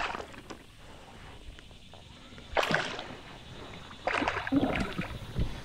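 A hooked bass splashing at the surface beside a kayak, in short bursts about two and a half seconds in and again from about four seconds in.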